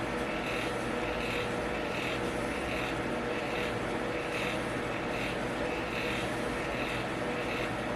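Electric fan running steadily, with a constant hum and a whir that swells and fades about every three quarters of a second.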